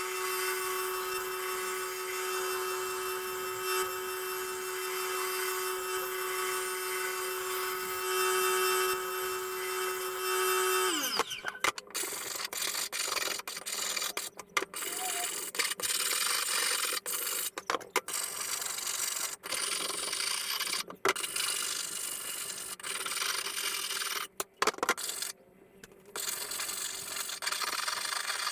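A blade-sharpening grinder runs steadily with a high whine while grinding a mower blade, then is switched off about eleven seconds in, its pitch falling as it spins down. After that come irregular scraping and rubbing sounds with short pauses.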